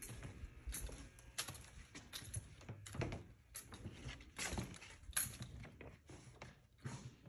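Footsteps walking at a steady pace across a hard wooden floor, about a step every half to two-thirds of a second.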